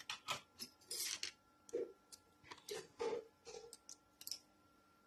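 Hands working a MacBook's replacement display assembly and small parts: an irregular run of light clicks, taps and short knocks, about a dozen over a few seconds.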